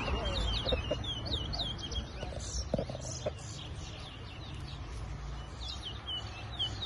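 Caged towa-towa seed finches singing: bright, quickly repeated whistled chirps in runs, over a low outdoor background rumble.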